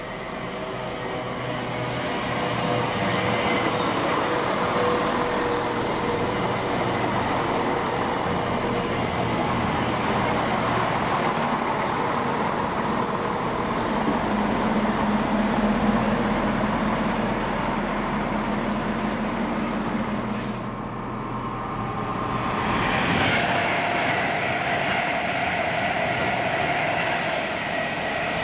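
A train running past on the line: the rumble of wheels on rail builds over the first few seconds and then holds steady. It dips briefly about three quarters of the way through and swells again, with a steady whine joining near the end.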